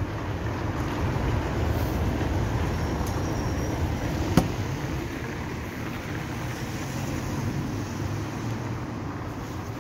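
Outdoor street ambience dominated by a steady low rumble of wind buffeting a phone microphone, with one sharp click about four and a half seconds in.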